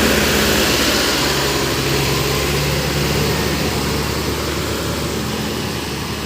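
Motor vehicle engines running close by in slow traffic, with a steady rush of road noise, slowly fading.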